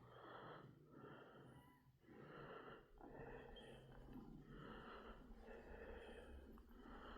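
Near silence with faint, rhythmic breathing, a soft swell about once a second.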